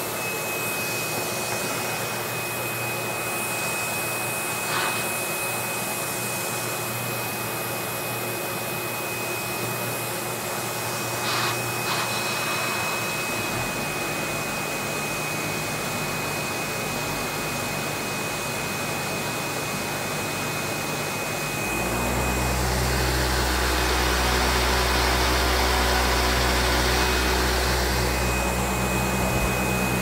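Windsor Versamatic VS18 commercial upright vacuum running steadily with a high, thin whine. About two-thirds of the way through the sound changes and grows louder as a deep hum joins in and the whine drops away.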